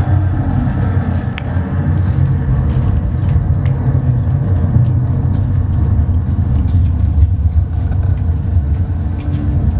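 Deep, steady rumbling drone opening a dark ambient piece of music, with a few faint clicks above it.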